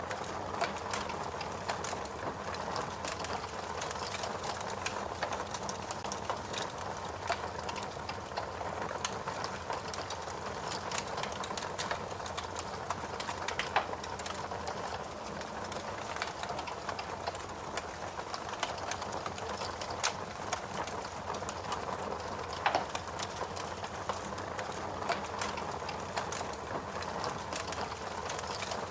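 Fire crackling: a dense, steady run of small pops and snaps over a soft hiss, with a few louder pops standing out, one about halfway through and another a little later.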